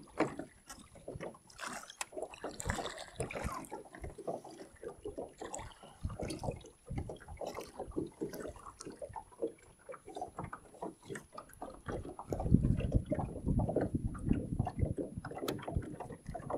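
Small waves lapping and splashing irregularly against the hull of a small open boat, with a louder low rumble of wind on the microphone from about twelve seconds in.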